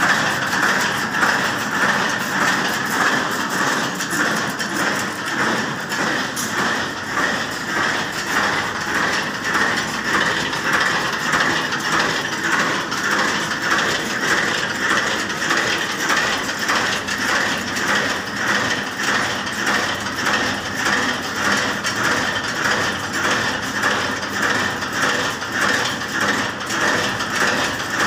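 Fully automatic barbed wire making machine running, its gears and mechanism clattering steadily with an even, rapid beat.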